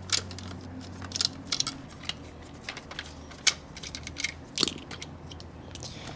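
Irregular light clicks and short scrapes of a small screwdriver and hard plastic parts as screws are taken out of a plastic toy truck, over a faint steady hum.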